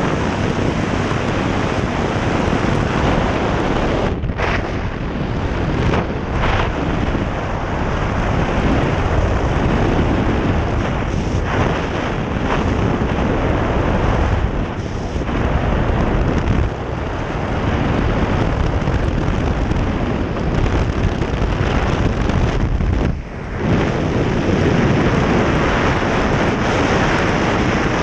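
Loud, steady rush of wind buffeting a skydiver's helmet-camera microphone at the open aircraft door and in freefall, with a few brief dips.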